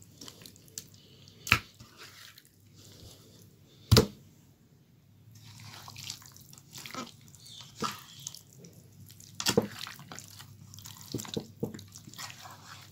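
Hands rubbing a thick gram-flour and spice marinade into raw fish pieces in a metal platter: irregular wet squelching and scraping, with a few sharp knocks against the metal, the loudest about four seconds in.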